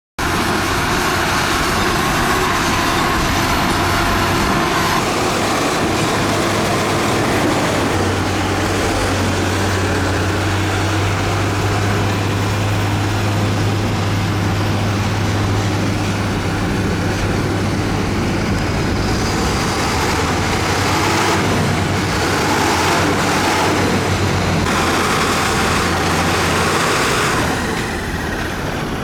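Heavy construction machine's diesel engine running steadily, with a low, even hum through most of it and the level dropping slightly near the end.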